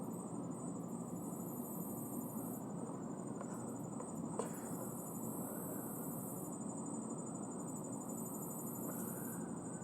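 Insects trilling high and shrill in spells of about two seconds that stop and start again, over a steady low background rumble.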